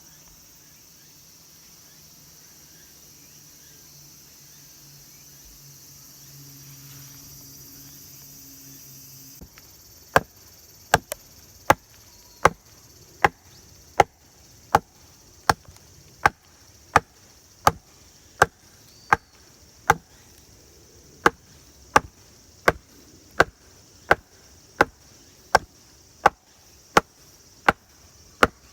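A very regular series of sharp knocks, about three every two seconds, starting about a third of the way in, over a steady high-pitched hiss.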